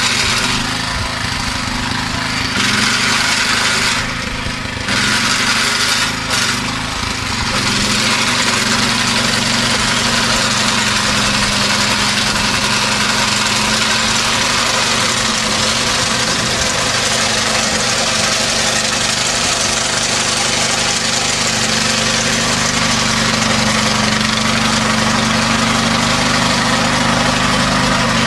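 Small petrol engine of a two-wheel walk-behind mower running steadily while cutting grass. Its sound falls off briefly a few times in the first several seconds, then stays even.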